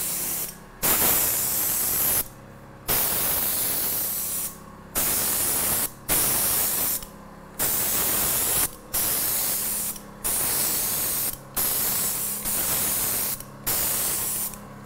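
Paint spray gun hissing in repeated bursts of a second or so with short breaks between, the trigger pulled for each pass while spraying a finish coat of cabinet paint on the inside trim. A faint steady hum runs underneath.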